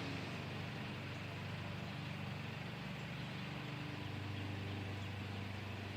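ACA Banshee outdoor warning siren's chopper still spinning down after the siren has stopped sounding: a steady low hum.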